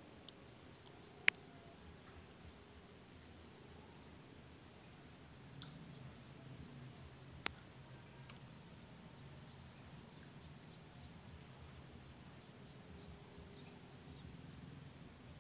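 Quiet waterside ambience with an insect trilling high and steady in a regular pulsing pattern. Two sharp clicks stand out, about a second in and near the middle.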